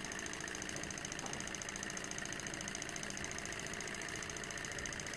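SH-021 coaxial swing-arm beta Stirling engine running fast and steady: a quick, even mechanical whirr of its swing-arm linkage and flywheel shaft.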